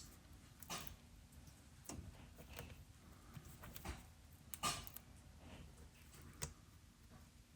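A few scattered light taps and knocks, about five in all, the loudest just past the middle: the Superthaw's plastic casing handled while its self-adhesive rubber feet are pressed on.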